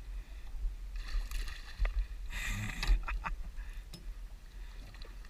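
Water splashing and sloshing at the side of the boat, with a louder burst of splashing about two and a half seconds in, over a steady low rumble.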